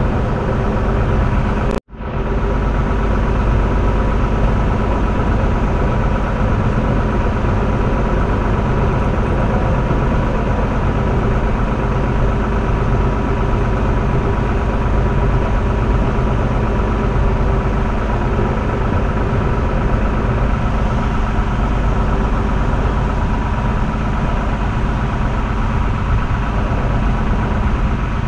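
Train running slowly along the track, heard from the front of the train: a steady low rumble with a constant motor hum. The sound cuts out sharply for a moment about two seconds in, then resumes unchanged.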